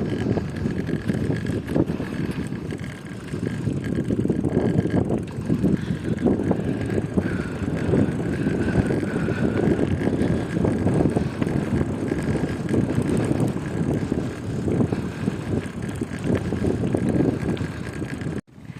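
Strong wind buffeting the phone's microphone while riding a bicycle on a dirt road, a steady low rushing with tyre and bike noise underneath and a faint steady high tone above. The sound cuts out abruptly near the end.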